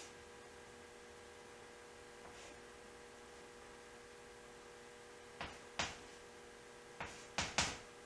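A stick of chalk tapping and scraping on a chalkboard in about six short strokes during the last three seconds, as letters are written. A steady electrical hum runs underneath.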